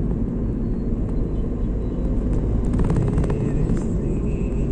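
Steady low rumble of engine and road noise inside the cabin of a moving Hyundai i20, with a few light clicks about three seconds in.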